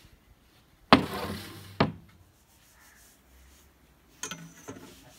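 A wooden beam knocks down onto a wooden table top and scrapes along it, with a second knock about a second later. Near the end, a steel square clicks against the wood, the first click with a brief high ring.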